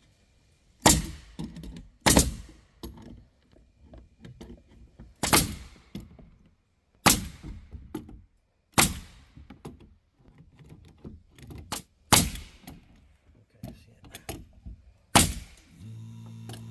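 Pneumatic nail gun firing nails one at a time, about seven sharp shots spaced one to three seconds apart. Near the end the 8-gallon oil-free air compressor's motor kicks on with a steady hum as the tank pressure drops.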